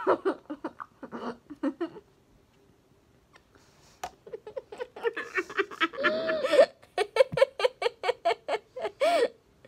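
Two girls giggling with their mouths full of water, trying not to laugh, in quick pulsed bursts. A short burst comes at the start, then after a pause a longer run of stifled giggles.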